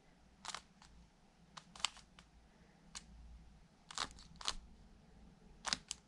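Plastic layers of a stickerless 3x3 speedcube clicking as they are turned by hand through the Sune algorithm, about ten short, sharp clicks at an uneven pace.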